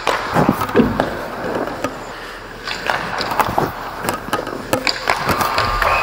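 Ice hockey play at the net: skates scraping on the ice, sticks clacking and the puck knocking off the goalie's pads in a run of sharp hits during two quick saves. A steady buzzer starts right at the end: the game-ending horn.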